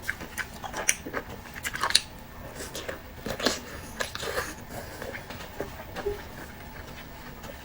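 Close-miked eating: a person biting and chewing food, with irregular wet mouth smacks and clicks that thin out after about five seconds.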